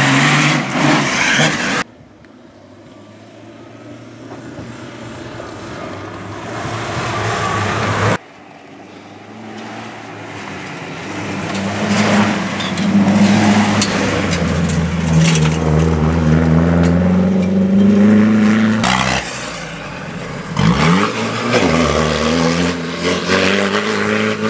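Rally-raid race cars at speed, in edited shots with abrupt cuts about two and eight seconds in. An engine grows louder from a distance, its pitch climbing and dropping through gear changes, then swoops down in pitch as the car passes close by, and another car comes in near the end.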